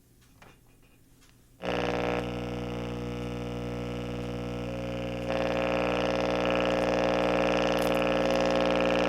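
Bose Wave Radio AWR1 putting out a loud, steady hum-buzz from its speaker that starts abruptly after a few faint clicks and steps louder about five seconds in. Turning the volume has no effect on the noise, which the owner takes for failing filter capacitors.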